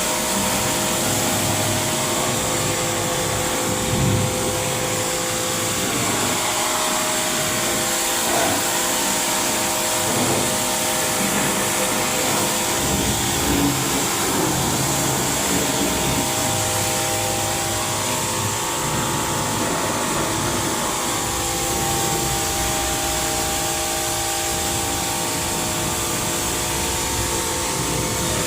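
A motor-driven machine running steadily, a constant hum with several steady whining tones over an even hiss.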